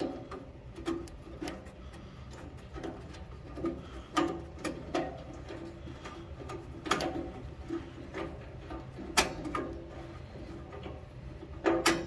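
Scattered sharp metallic clicks and knocks of a 9/16 wrench and fingers working a fuel-line fitting loose under a generator's fuel tank, irregular, the loudest about four, seven and nine seconds in.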